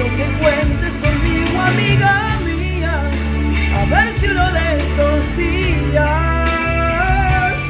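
A man singing a Spanish-language pop ballad with long held notes, over recorded accompaniment with a steady bass line.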